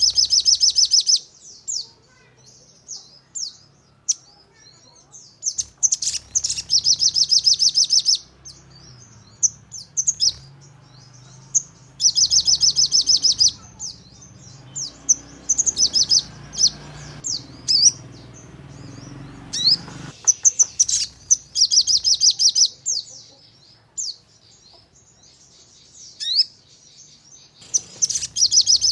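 Sogon bird calling in rapid-fire trills ('nembak'): high, fast-pulsed bursts of a second or two, repeated about every six seconds, with scattered short chirps between them. A faint low hum runs underneath for a few seconds midway.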